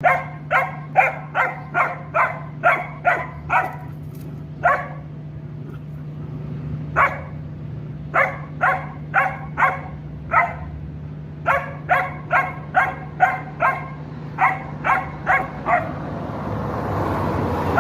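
A dog barking in quick runs of about two barks a second, with short pauses between runs, while it confronts a mouse. A steady low hum runs underneath.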